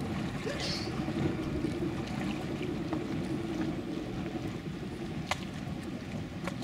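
Speedboat engine running at idle, a steady low rumble as the boat manoeuvres slowly, with a couple of sharp clicks near the end.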